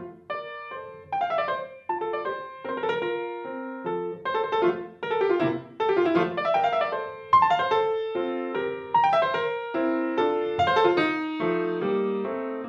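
Solo grand piano playing a classical piece: quick runs of notes and struck chords, one after another without a break.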